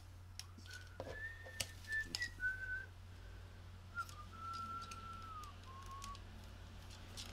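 Soft whistling of a short wandering tune, with a few light clicks from the small plastic toy vacuum being handled.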